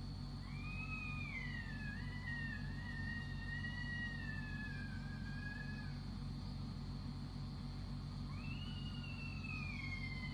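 Two long, wavering high-pitched wails: the first rises briefly, then slides down and wavers for about five seconds; the second starts near the end with a sharp rise and slowly falls. It is an unexplained night-time scream.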